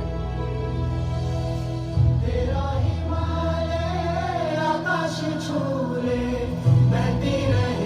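Recorded song played for a dance: a choir sings long, gliding notes over a steady low bass.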